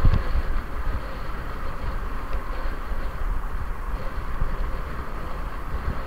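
Wind buffeting a bike-mounted camera's microphone and road noise from riding a bicycle along a busy road: a steady low rumble with hiss, as cars pass close by. A short knock at the very start.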